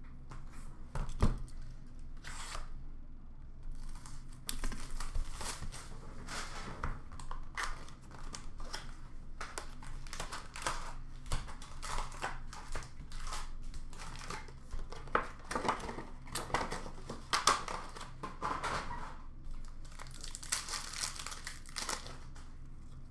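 Upper Deck hockey card packs being torn open by hand, their wrappers crinkling, with irregular rustles of cards and wrapper throughout. A sharp knock about a second in.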